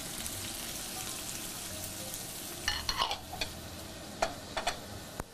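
Chopped onions sizzling as they fry in hot oil in a pan, a steady hiss. A few sharp clinks and knocks come a little past halfway and again near the end.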